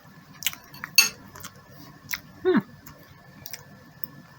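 Scattered sharp clicks and taps of eating cake, the loudest about a second in, with a short falling 'mm' from a voice about two and a half seconds in.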